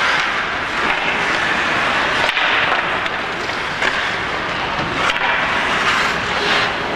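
Ice hockey play in a rink: skate blades scraping and carving the ice in a steady hiss, with a few sharp clacks of sticks and puck.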